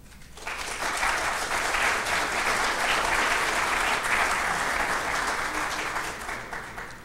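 Audience applauding at the end of a lecture: steady clapping that starts about half a second in and dies away near the end.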